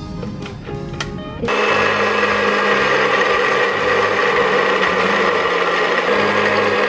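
Small electric blender with a grinder jar starts about a second and a half in and runs steadily, grinding a wet spice paste of shallots, garlic, candlenut and seeds in oil. Background music with light chimes plays before it starts and continues faintly underneath.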